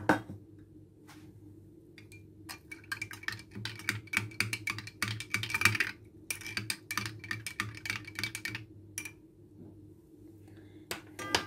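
Metal teaspoon stirring a drink in a glass tumbler, clinking quickly and repeatedly against the glass, which rings faintly. Near the end there are a couple of sharp knocks with a brief ring, as the spoon is knocked against the glass or set down.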